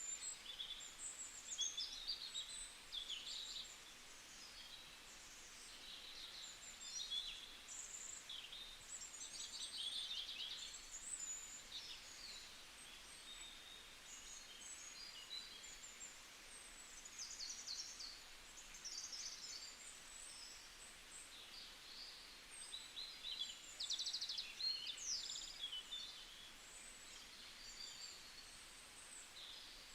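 Several small songbirds chirping and trilling, their quick high calls overlapping over a faint steady hiss of outdoor ambience.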